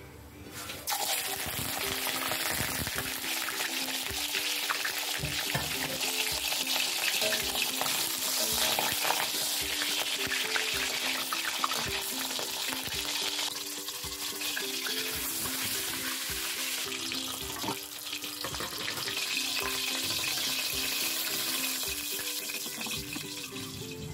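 Whole pompano frying in hot oil in a steel wok: a steady, loud sizzle that starts abruptly about a second in. A melody of background music plays under it.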